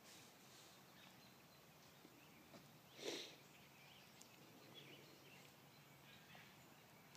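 Near silence: faint outdoor woodland ambience with a few faint bird chirps, and one brief noisy rustle-like burst about three seconds in.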